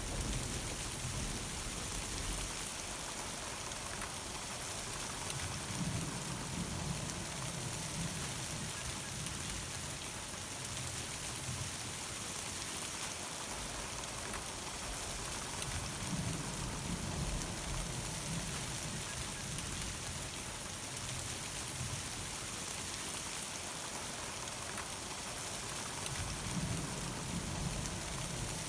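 Steady summer thunderstorm rain pattering on surfaces, with a low rumble rising and fading three times.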